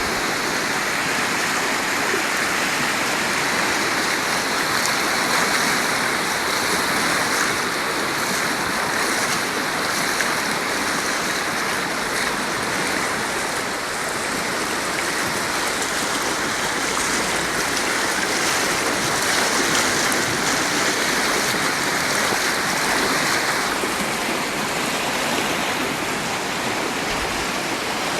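Floodwater rushing in a steady, even wash.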